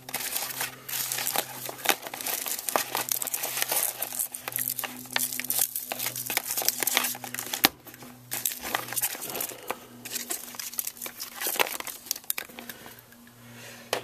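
Plastic mailing bag crinkling and rustling, with tangled test leads shuffling and small clicks, as a hand rummages through a cluttered meter case. The rustles come irregularly throughout, with a faint low hum underneath.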